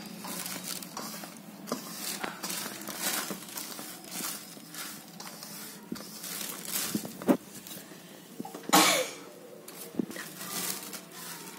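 A hand stirring and scraping dry mango-pickle masala (split mustard seed, red chilli powder, salt and seeds) in a stainless-steel bowl: a dry rustle of grains against metal in short strokes, with a louder scrape about nine seconds in.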